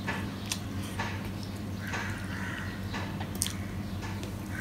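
Close-miked eating sounds: a man chewing rice with wet mouth clicks and smacks, and his fingers working rice on a steel plate, over a steady low electrical hum.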